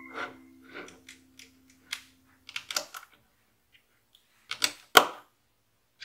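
LEGO plastic pieces clicking and tapping as small 1x2 plates are picked up from a tabletop and pressed onto a brick-built puzzle box. Short scattered clicks come in two tight clusters, a little before halfway and again near the end, and the loudest click falls about five seconds in.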